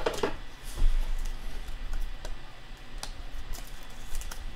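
Scattered light clicks and plastic rustling from a trading card being handled and slid into a rigid clear plastic top-loader, with a sharper click about a second in.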